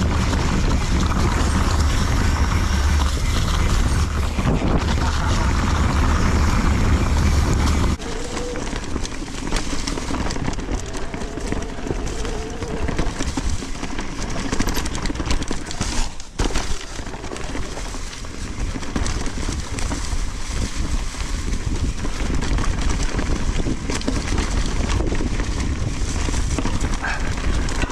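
Mountain bike ride on a dirt trail heard from an on-bike or helmet camera: heavy wind buffeting on the microphone for about the first eight seconds stops suddenly, then the tyres rumble over the ground with a steady rattle of small knocks and clicks.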